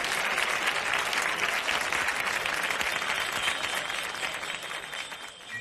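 Live audience applauding at the end of a song, thinning out near the end.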